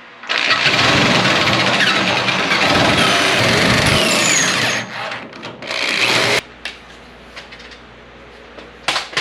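Power drill with a step drill bit cutting a small hole: one long run of several seconds, a short pause, then a second shorter run that stops suddenly.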